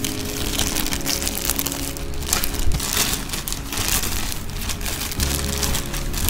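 A clear plastic bag crinkling and rustling continuously as hands grip and open it, with rigid plastic helmet visors inside.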